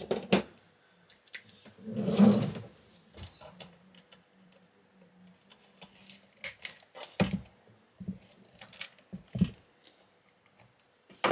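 Scattered clicks and knocks of plastic connectors and parts being worked loose from a high voltage junction box, with a louder low sound about two seconds in.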